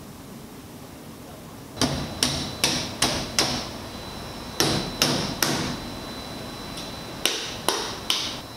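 Meat cleaver chopping into raw pig carcass on a table: eleven sharp blows in three quick runs, about two or three a second, starting about two seconds in.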